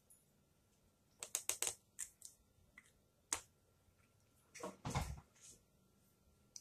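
Light plastic clicks and taps from handling a plastic dehydrator tray, plastic canvas sheet and a marker: a quick run of about four clicks a second in, single clicks after, and a duller knock about five seconds in.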